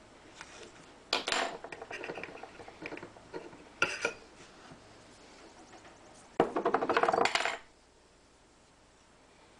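Hands working electrical tape onto the stainless-steel blade clamp of a RUIXIN PRO knife sharpener: light metallic clicks and scraping, a sharp click, then a louder crackling burst lasting about a second, about six and a half seconds in.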